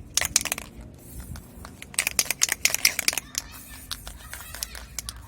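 Sharp clicking and rattling of a brake-silencer container being handled and opened, in a short flurry just after the start and a longer, denser one from about two to three seconds in.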